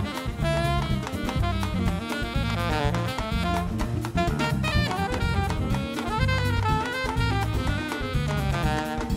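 Live Brazilian jazz band playing: a horn section of saxophones, trombone and trumpet carries the melody over drum kit, hand percussion, electric bass and guitar.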